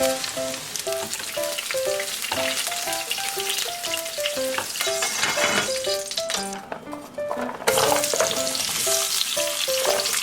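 Food sizzling and crackling in a frying pan as it is stirred; the sizzle dies down for about a second late on, then comes back loudly. Light background music with short plucked notes plays along.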